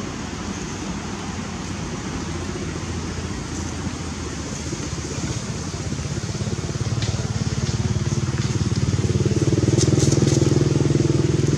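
A motor vehicle engine running at a steady pitch, growing louder through the second half as it comes closer.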